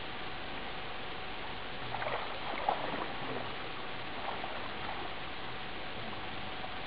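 Water sloshing and splashing as a person wades chest-deep through still water, with a flurry of splashes about two to three and a half seconds in, over a steady hiss.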